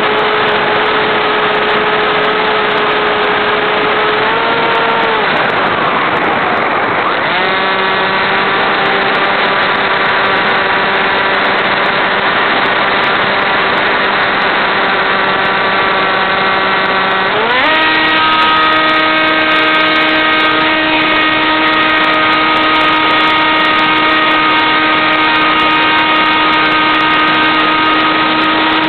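Motor and propeller of an AXN Clouds Fly electric RC airplane, heard from a camera on board, buzzing steadily over a rush of air. About four seconds in it rises briefly and then fades as the throttle is eased off. It comes back a little lower about seven seconds in, then climbs sharply in pitch near eighteen seconds in as the throttle is opened, and holds there.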